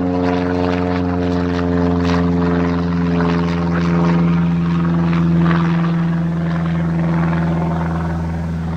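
Single-engine propeller light aircraft flying overhead: a steady engine and propeller drone that swells slightly midway.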